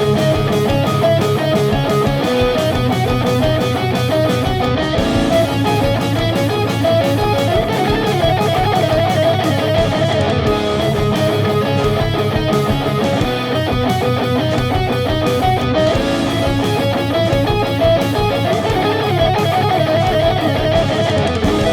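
Electric guitar, an Ibanez fitted with coated strings, playing a neoclassical-style instrumental of quick single-note lines over a steady low pulse.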